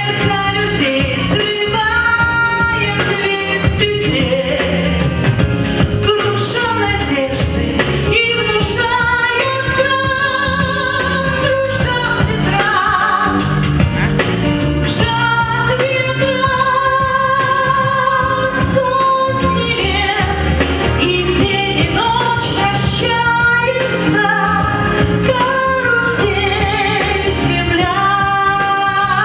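A song: a voice sings a melody with long, wavering held notes over a steady band accompaniment.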